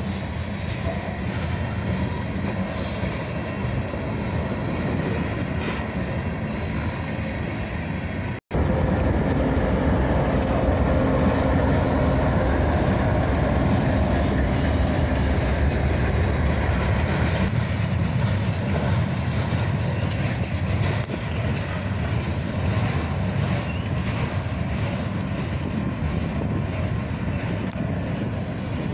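A freight train rolling past close by: a steady rumble and clatter of steel wheels on the rails, with a diesel locomotive in the middle of the train going by partway through. The sound cuts out for an instant about eight seconds in and is louder after it.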